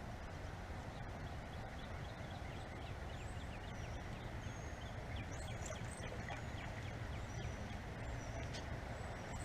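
Steady low outdoor rumble, like wind on the microphone, with faint high bird chirps coming and going from a few seconds in.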